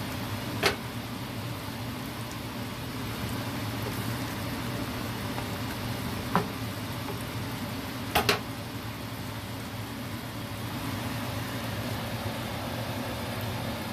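Steady low mechanical hum with a hiss over it, with three short sharp clicks: about a second in, a little after six seconds, and a double one at about eight seconds.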